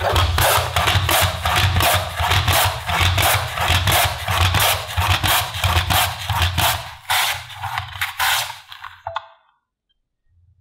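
Raw potatoes being worked with a hand kitchen tool: quick, even scraping strokes, about three a second, that stop about nine seconds in.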